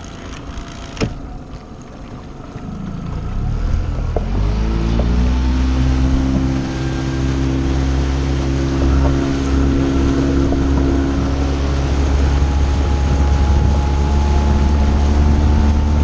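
Small outboard motor on an inflatable dinghy: it throttles up with a rising pitch a few seconds in, then runs steadily at speed.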